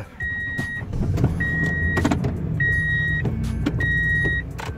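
2001 Toyota Tundra pickup's engine running, louder from about a second in, with the cab's warning chime beeping steadily, four beeps about a second apart.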